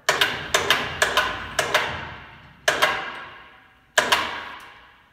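Electric chain hoist jogged in short presses to take up the weight of an aircraft turbine engine: a string of sharp metallic clanks, each ringing out, the last about four seconds in.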